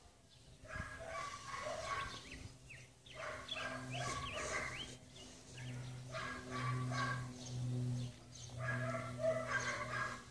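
Clusters of short repeated animal calls, with a few high rising chirps in the middle and a steady low hum underneath.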